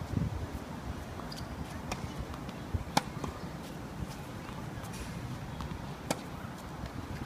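Tennis balls struck by rackets: a few sharp pops one to three seconds apart, the loudest about three seconds in, over a low rumble.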